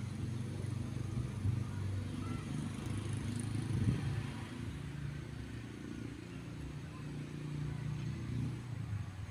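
Strong wind buffeting the microphone, a continuous low rumble with a faint steady low drone underneath.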